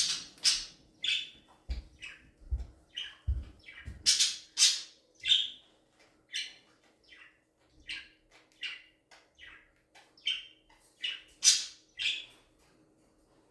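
Pet parrot calling in a quick run of short chirps and squawks, about two a second, that stop about a second before the end. A few soft low thumps come between two and three seconds in.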